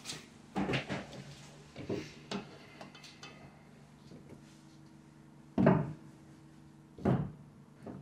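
A few scattered knocks and clunks of objects being handled. The two loudest come near the end, about a second and a half apart, over a faint steady hum.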